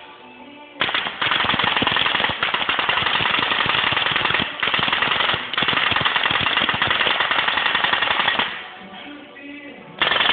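An automatic staple gun firing in rapid, continuous bursts: a fast, loud clatter of clicks lasting about seven and a half seconds with two brief breaks, then a short second burst near the end.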